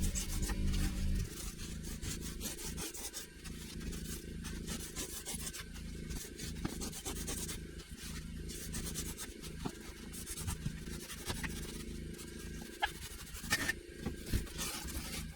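Rigid foam insulation board being cut and trimmed by hand, a run of quick rasping, rubbing strokes. A low steady hum cuts out about a second in.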